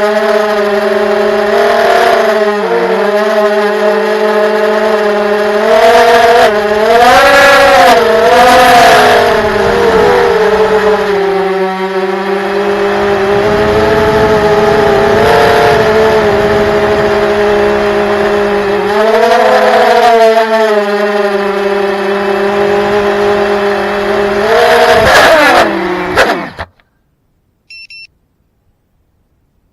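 The brushless motors and propellers of an FPV quadcopter drone whine steadily and loudly, rising in pitch with several bursts of throttle. About 26 seconds in, the pitch falls quickly and the sound cuts off suddenly. A short electronic beep follows near the end.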